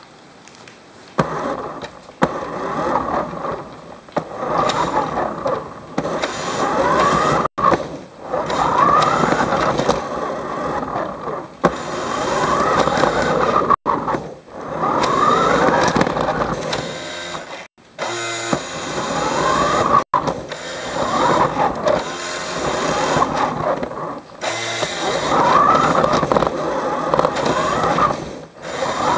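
Small electric motor of a toy car whining, its pitch rising and falling over and over as it speeds up and slows down, with the wheels and gears rattling over a hard wooden floor. The sound cuts off abruptly several times.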